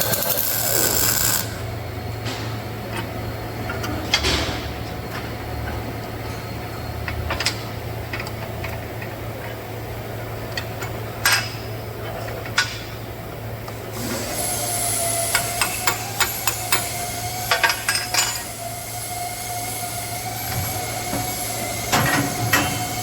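Chain-link welding machinery in a workshop: a steady electrical hum with scattered sharp metallic clicks and knocks. About two-thirds through, a louder hiss with a thin steady whine joins, and a quick cluster of knocks follows.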